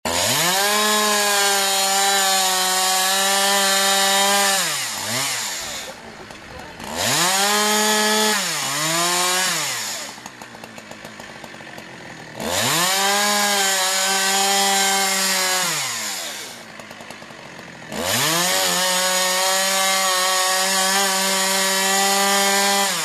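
Stihl two-stroke chainsaw revving up to full throttle and held there for several seconds while cutting into wood, four times, dropping back to a quieter idle between each burst. The pitch rises sharply at the start of each burst and falls away at its end.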